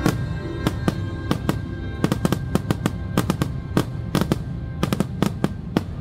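Aerial fireworks bursting in a rapid, irregular string of sharp bangs, several a second, over show music that is fading out.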